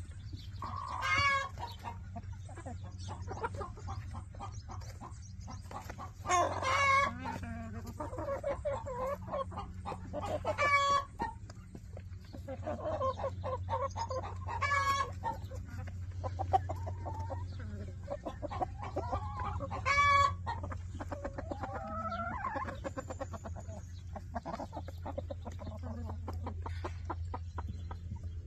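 A flock of hens clucking continuously while feeding, with about five louder, higher calls spread through, over a steady low hum.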